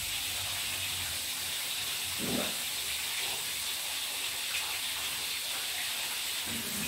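Steady high hiss of cooking in a kitchen, with a brief low sound about two seconds in.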